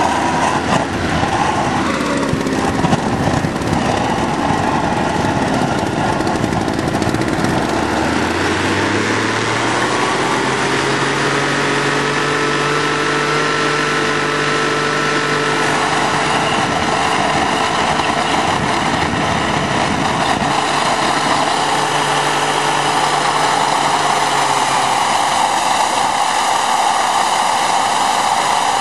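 Leaf blower running, blowing into the compressor inlet of a home-built T3/T4 turbocharger jet engine to spool it up for starting. The pitch climbs for a few seconds a third of the way in and then holds steady, and a louder rushing noise builds about halfway through.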